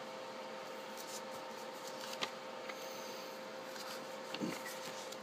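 Paper banknotes being handled and swapped on a table: a few faint rustles and clicks over a steady background hum with a constant tone.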